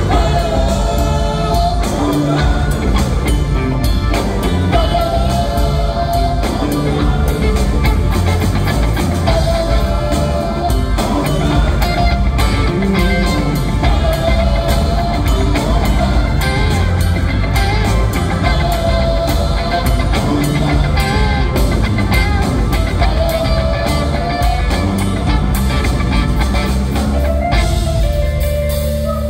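Live rock band playing a funk groove, with electric bass, electric guitars, drum kit and keyboards, heard from the audience in a theatre.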